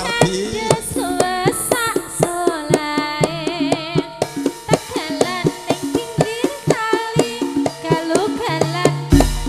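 Javanese tayub music played through a PA system: a female singer's sliding, wavering melody over held instrumental notes and quick hand-drum (kendang) strokes.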